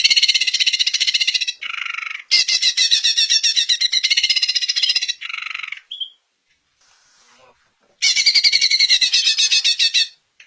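Greater green leafbird (cucak ijo) singing a loud, rapid chattering song of fast repeated notes. It breaks off about six seconds in and starts again about two seconds later.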